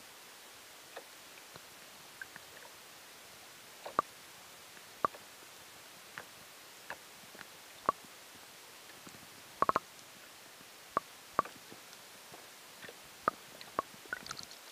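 Underwater sound: a faint steady hiss broken by about fifteen irregular sharp clicks, with a quick cluster of them about two-thirds of the way through.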